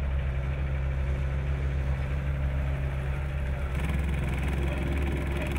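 Engine running steadily at a low idle. Near the end the sound turns rougher and brighter.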